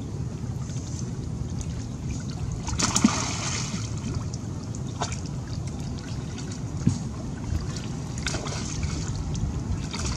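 Lake water splashing and trickling as a wet macaque swims beside a log and clambers up onto it, with two louder bursts of splashing about three and eight seconds in, over a steady low rumble.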